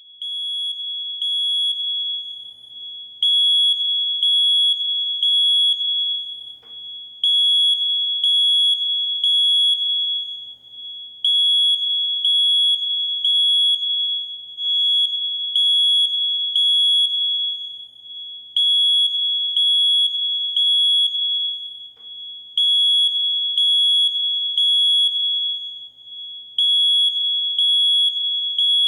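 Smoke alarm sounding a loud, high-pitched electronic beep in repeated groups of three with a short pause between groups, about every four seconds: the three-beep pattern of a smoke detector in full alarm.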